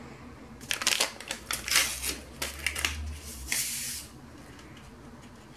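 Paper sachet of vanilla sugar opened and handled: a run of short paper crackles and rustles, then a brief hiss as the sugar pours into a glass bowl of eggs.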